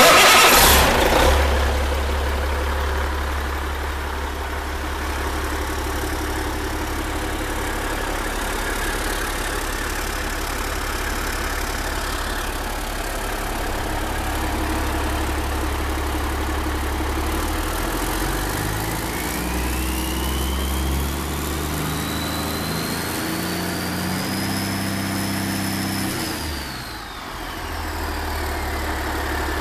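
Rebuilt Caterpillar C-15 inline-six turbo diesel running on an engine stand: louder at first, then settling to a steady low idle. About two-thirds of the way in it is revved up gradually with a rising turbo whine, then drops back to idle near the end.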